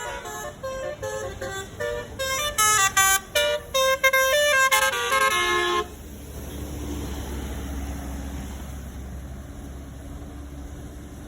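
Twelve-note basuri telolet bus horn playing a fast melody of stepped, trumpet-like notes. The notes stop about six seconds in, leaving the low steady rumble of the bus engine.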